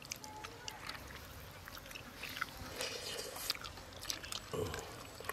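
A person eating rice and curry by hand and chewing, with soft, scattered wet mouth clicks and smacks.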